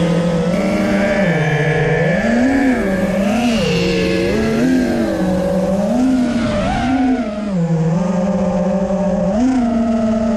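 FPV racing quadcopter motors and propellers buzzing in flight, the pitch rising and falling irregularly as the throttle is blipped, then holding steady near the end.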